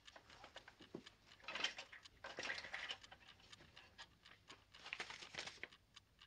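Faint, steady ticking of a wind-up alarm clock, with soft rustling and shuffling at about one and a half to three seconds in and again near five seconds.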